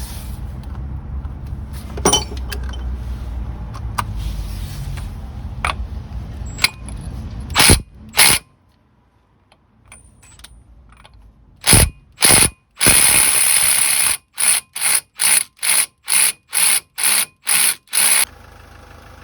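Ratchet socket wrench clicking in repeated strokes on a rusted, seized nut: a few separate strokes, a longer run of clicking, then about nine quick strokes at roughly two a second.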